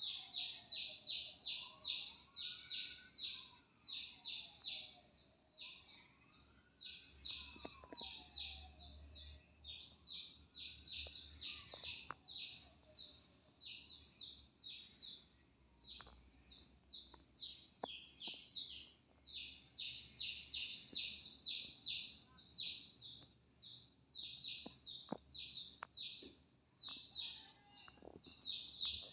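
Domestic chick peeping rapidly and continuously, several high peeps a second. A faint tone rises and falls slowly behind it for the first ten seconds or so.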